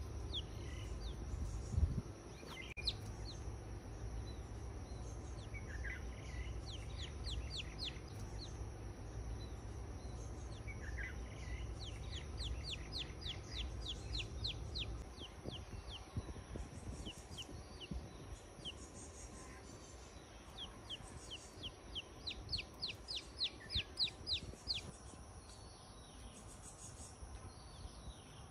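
A chick peeping: runs of quick, high, falling peeps, several a second, coming in bursts with pauses between. A single sharp thump about two seconds in, over a steady low outdoor rumble.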